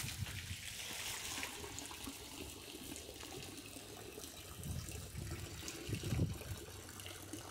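Water trickling and sloshing in a small fish pond, with splashing near the end as a floating plastic bag of fish is handled in the water.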